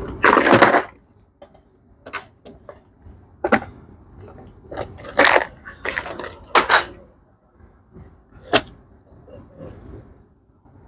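Clutch and flywheel parts and tools being handled: a loud scraping clatter in the first second, then scattered sharp clicks and knocks, about one every second or so.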